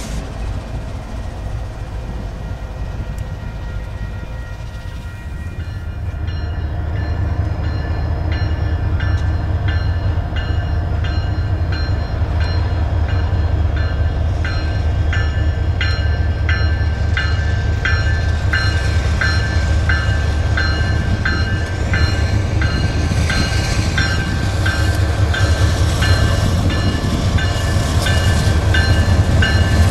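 Approaching Union Pacific freight, led by an ES44AC diesel-electric locomotive with more units behind, rumbling louder as it nears, with a repeated high ringing over the rumble.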